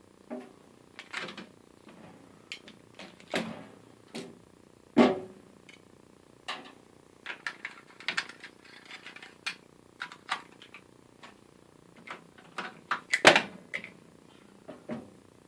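Metal hand tools being picked up and set down in a tool box drawer: irregular clinks and knocks, with two louder knocks about five seconds in and near the end.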